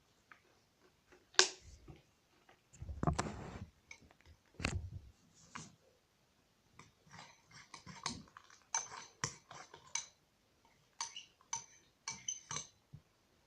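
Shaving-foam slime being handled and kneaded by hand as borax activator is worked in: a series of short wet clicks and pops, with two longer, fuller squelches about three and five seconds in, and dense clicking in the second half.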